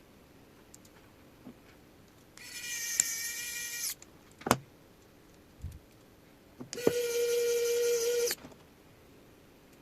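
Small electric screwdriver driving screws into a 3D-printed plastic motor mount, whining in two runs of about a second and a half each, with a sharp click between them.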